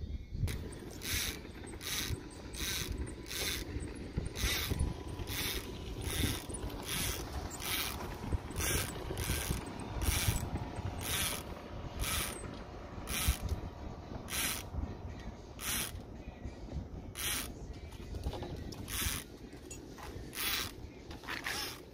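Fishing reel clicking in short, regular bursts, about two a second, over a low rumble of wind.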